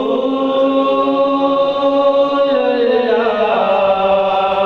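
A man singing a devotional chant solo into a microphone. He holds one long note, lets it fall in pitch about two and a half seconds in, then starts a new phrase.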